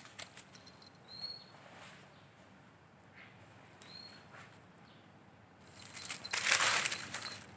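Palm fronds rustling and crackling as a kitten leaps and scrambles among them, a loud burst of about a second and a half starting about six seconds in, after a few soft ticks of movement in the leaves.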